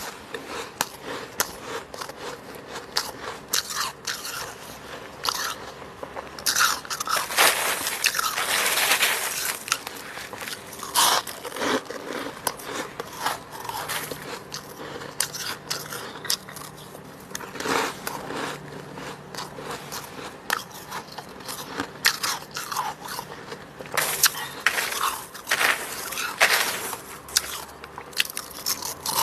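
Close-miked biting and chewing of fluffy freezer frost: a run of irregular, soft crunches.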